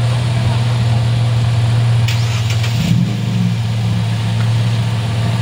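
Loaded truck's engine running steadily under load as the truck crawls up a steep, muddy dirt slope. A brief hiss cuts in about two seconds in and lasts under a second, and the engine note shifts slightly just after.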